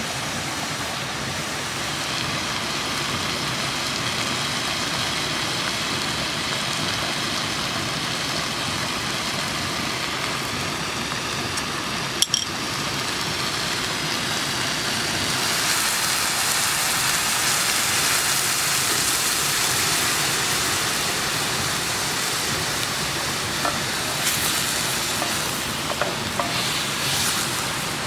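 Buffalo meat and onions sizzling in a metal pot over a campfire. About twelve seconds in there is a short click, and from about fifteen seconds the sizzle grows louder as a red liquid is poured into the pot; a few light knocks of a wooden spoon stirring come near the end.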